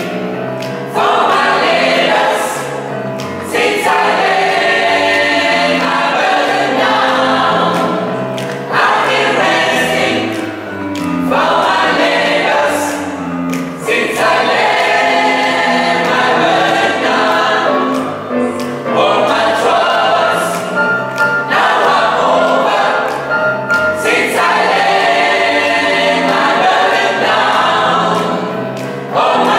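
Mixed gospel choir of men and women singing, in phrases a few seconds long with short breaks between them.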